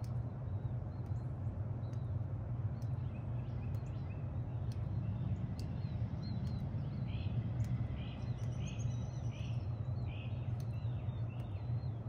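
2006 Bard wall-hung heat pump running steadily in cool mode, a low, even hum. Birds chirp in the background, mostly in the second half.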